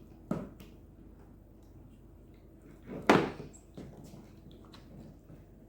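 Two sudden knocks: a short one near the start and a much louder thump about three seconds in.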